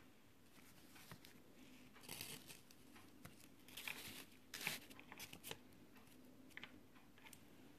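Faint rustling of printed paper sheets being handled, in a few short spells.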